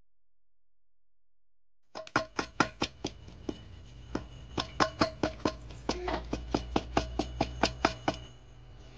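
Hands mixing and kneading flour dough in a stainless steel bowl, knocking against the bowl so that it rings briefly with each stroke. The knocks start suddenly about two seconds in, settle to about four a second, and stop shortly before the end.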